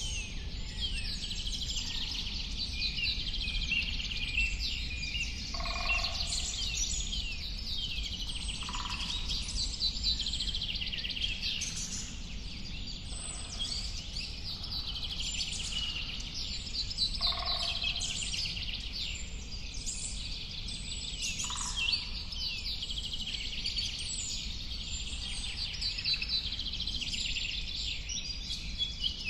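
A dense chorus of many birds singing and chirping at once, with a lower call breaking in every few seconds, over a steady low rumble.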